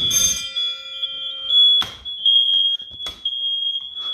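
Smoke alarm sounding a steady, piercing high-pitched tone, set off by smoke from pizza toppings burning on the oven floor. Three short, sharp noises cut across it, at about two seconds, at three seconds and near the end.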